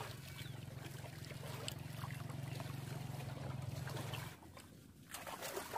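Shallow muddy water sloshing and dripping around wading legs and woven bamboo baskets, with small splashes and drips. Under it runs a steady low hum that cuts off abruptly about four seconds in.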